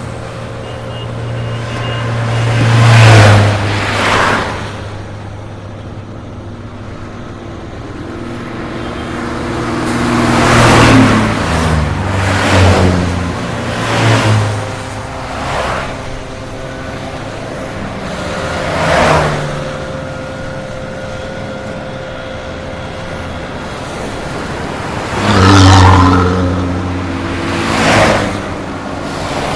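Highway traffic heard from the roadside: vehicles pass by one after another, each rising and falling in a whoosh of engine and tyre noise over a steady background of road noise. The loudest passes come about three seconds in, around eleven seconds, and near twenty-six seconds, the heavier ones with a low engine hum.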